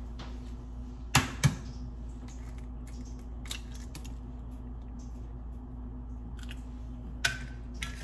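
Eggs being cracked against the rim of a mixing bowl: two sharp taps a little over a second in, a few light clicks after, and two more taps near the end, over a steady low hum.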